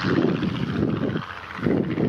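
Piston-engined propeller aircraft flying over, its engine drone fading, with gusts of wind buffeting the microphone.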